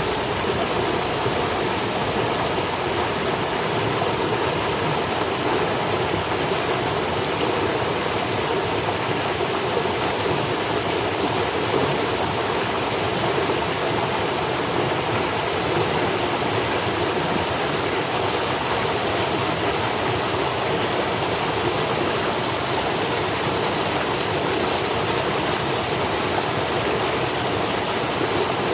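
Mountain valley stream, its water rushing steadily.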